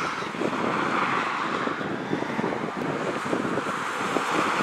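Wind buffeting the microphone over a steady, distant drone from a light single-engine propeller plane on approach; the drone swells slightly near the start and again near the end.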